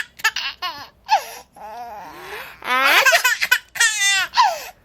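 Seven-month-old baby laughing at a pretend sneeze, in several bursts of high-pitched giggles, the longest about three seconds in.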